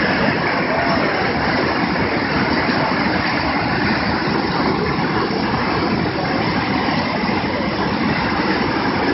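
Swat River in flood, rushing with a steady, loud roar.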